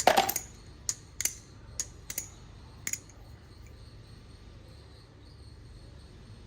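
Theone Alien balisong being flipped by hand: a quick cluster of sharp metallic clicks at the start, then about five single clicks over the next three seconds as the handles and blade knock together.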